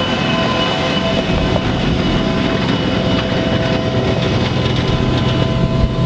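John Deere harvester with a corn header driving past close by: a loud, steady diesel engine rumble with several steady whining tones from the machinery over it.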